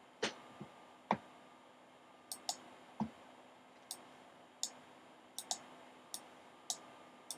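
Irregular computer clicks, mouse buttons and keys: about a dozen short, sharp clicks with a few duller knocks among them, spread unevenly over the seconds, over faint room hiss.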